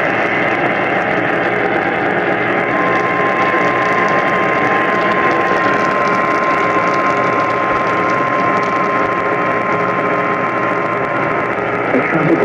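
Weather radio receiver hissing with static; about three seconds in, the steady single-pitch NOAA Weather Radio warning alarm tone starts and holds for about nine seconds, then cuts off shortly before the end. The tone signals that a new warning message is about to be broadcast.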